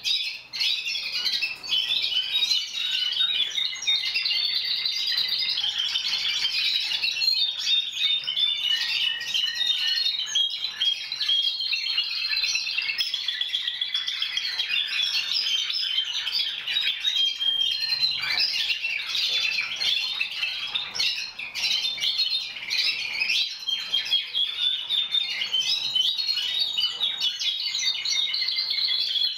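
Timbrado Español song canaries singing together, a continuous dense chorus of overlapping trills and chirps with no break.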